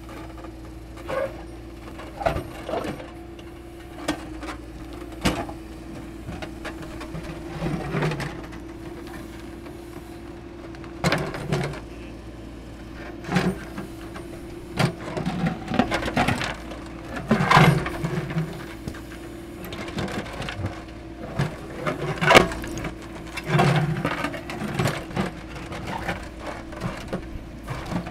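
JCB backhoe loader's diesel engine running steadily while the steel bucket digs and scrapes around a large boulder, with repeated clanks and scraping of metal on rock and soil.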